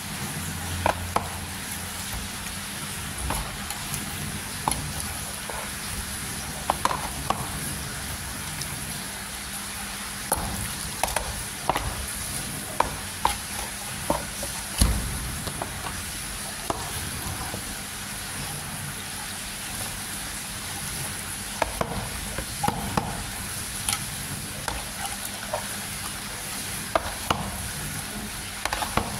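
Chicken frying in hot oil, a steady sizzle, with frequent short clacks of a utensil against the pan as the pieces are stirred and turned.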